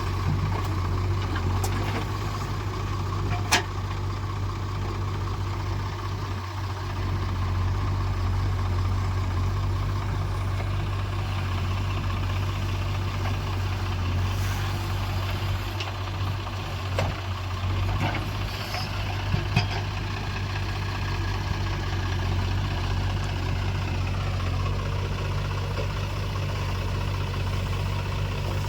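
Heavy diesel engine of earthmoving machinery running steadily under work, with a few sharp knocks, the sharpest a few seconds in. Its pitch falls about three-quarters of the way through.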